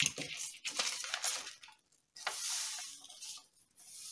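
A sheet of paper rustling as it is picked up and folded, then coloured salt sliding off it into a small glass jar with a hiss and light clinks against the glass.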